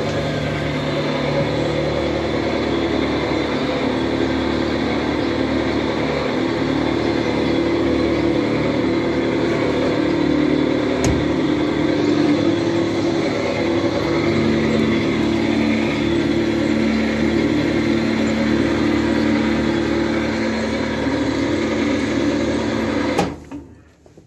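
Animal feed mixer machine running steadily under load, its drive and mixing paddles making a loud continuous machine hum with several held tones. The sound stops abruptly near the end.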